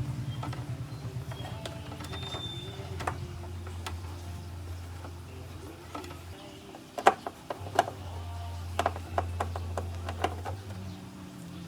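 Fully automatic washing machine running: a steady low motor hum in two stretches of about three seconds with a short break between, and a string of sharp mechanical clicks and knocks in the middle.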